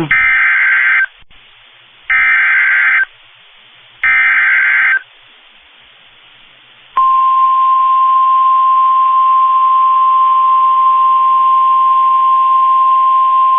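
Emergency Alert System SAME data header: three one-second bursts of shrill warbling data tones, a second apart. About seven seconds in, the weather radio's steady single-pitch attention alarm starts and holds, signalling an incoming severe thunderstorm warning.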